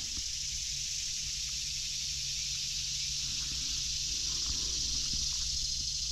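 Steady high-pitched chorus of insects, an even shrill hiss that holds throughout, with a faint low hum and a few small ticks beneath it.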